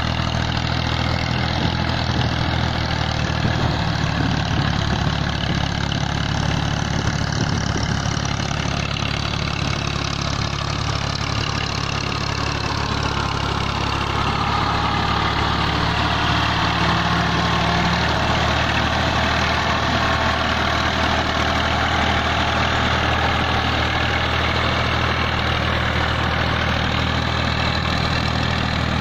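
Massey Ferguson 240 tractor's three-cylinder diesel engine running steadily under load while it drags a tine cultivator and plank leveller through a flooded paddy, with muddy water sloshing around the wheels. It gets louder about halfway through as the tractor passes close.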